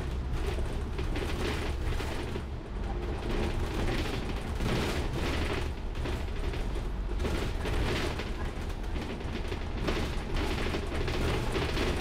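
Inside a moving bus: a steady low engine and road rumble with frequent rattles and knocks from the bodywork.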